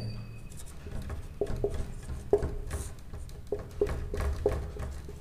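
Marker pen writing on a whiteboard: about ten short, irregular strokes of the tip against the board, starting about a second in.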